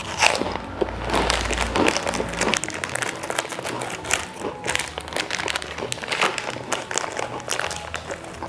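Small plastic snack packet crinkling as it is torn open and handled.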